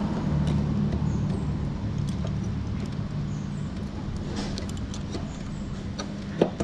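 A motor vehicle engine running steadily with a low hum that slowly fades, and a couple of short clicks near the end.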